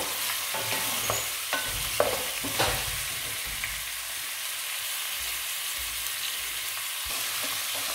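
Raw mutton pieces sizzling in hot oil in a metal pot as they are seared to draw out their water, with a few knocks and scrapes of a wooden spatula stirring them in the first few seconds. After that the sizzle runs on steadily.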